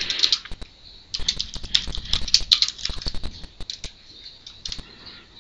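Typing on a computer keyboard: a quick, irregular run of key clicks that thins out near the end.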